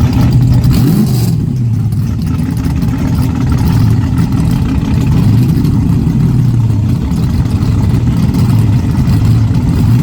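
A heavy engine running loudly, its pitch rising and falling again and again as it revs.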